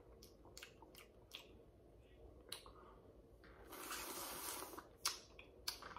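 Crawfish being peeled by hand and sucked at the mouth: small sharp cracks and wet clicks of the shell, with a slurp lasting about a second a little past the middle.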